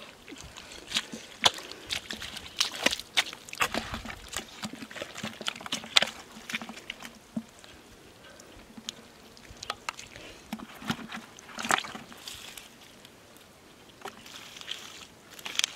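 Shallow water splashing and sloshing in irregular bursts of sharp splashes, as fish are caught by hand in drying water. The splashes are busiest in the first half, thin out in the middle and pick up again near the end.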